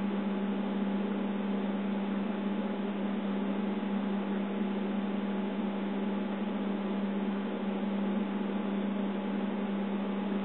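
A steady low hum under an even hiss, with no other sound standing out.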